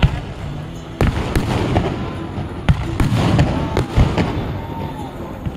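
Aerial firework shells bursting: about half a dozen sharp bangs at uneven intervals, with a low rumble between them.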